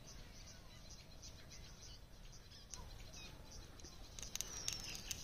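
A few sharp, scratchy clicks in quick succession about four seconds in: a matchstick being struck. Faint bird chirps can be heard behind it.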